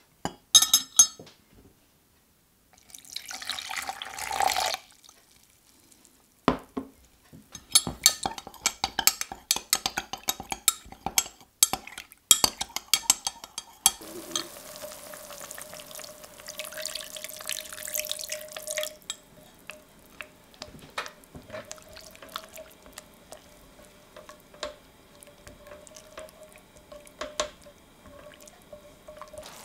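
A metal spoon clinks against a glass measuring jug as corn flour is tipped in and water is poured and stirred in to make a slurry, a run of quick clinks in the first half. Then a pan of chopped red onion, garlic and ginger simmers in white wine, with a steady bubbling and small pops, and a spatula scrapes through it near the end.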